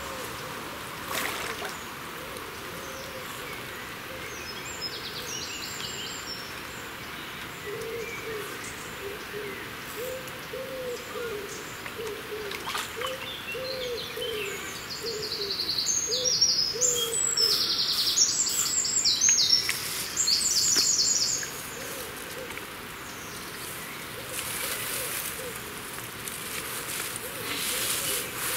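Birds calling: a low hooting call repeated in a run of short notes, and bursts of fast, high trilling song that are loudest in the middle.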